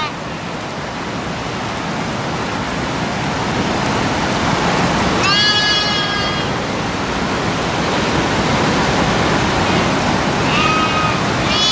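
Sheep bleating, one high, held call about five seconds in and two more near the end, over a steady rushing of running water.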